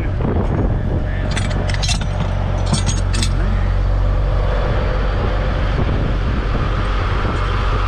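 Crane truck's diesel engine running steadily while its knuckle-boom loader crane lifts a cable reel. A knock as the steel lifting bar drops into the reel's hole, then metallic clinking of the hook and chain about one and a half and three seconds in.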